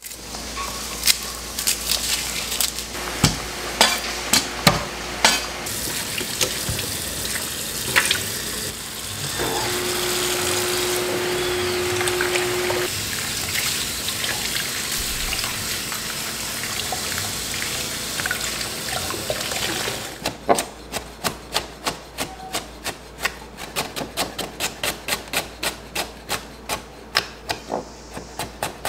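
Kitchen tap running into a stainless steel sink while hands rinse peppers under it, with scattered knocks. About two-thirds of the way in this gives way to a chef's knife chopping on a wooden cutting board, about three cuts a second.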